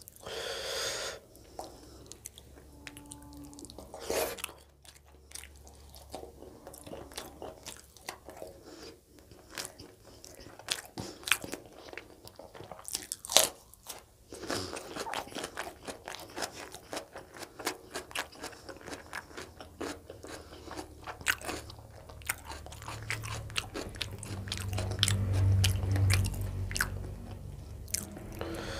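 Close-miked eating: a man chewing and biting chicken gizzard curry and roti eaten by hand, with many short wet clicks and smacks. A low rumble swells near the end.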